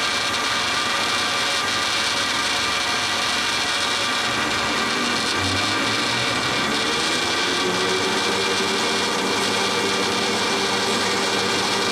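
DoALL C-70 horizontal band saw running steadily, a continuous mechanical noise with several fixed tones. About two-thirds of the way through, a new pitched tone comes in, rises slightly and then holds.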